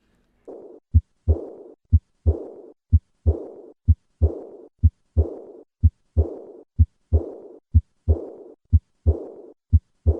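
Heart sounds with an early diastolic decrescendo murmur, as in aortic or pulmonary valve regurgitation. Each beat gives two short thumps, and right after the second a hissing murmur starts loud and fades away, repeating about once a second.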